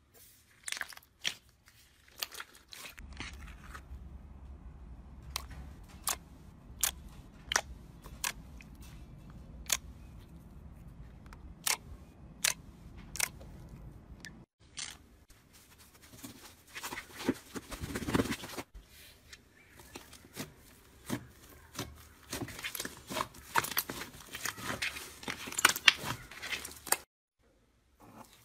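Clear slime being pressed and squeezed by hand: a string of sharp clicks and pops from trapped air, then denser crackling in the second half.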